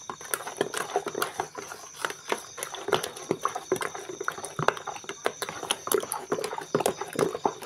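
Metal spoon stirring a thick chocolate starch mixture in a basin, with quick, irregular knocks and scrapes against the basin's side as the sugar is mixed in.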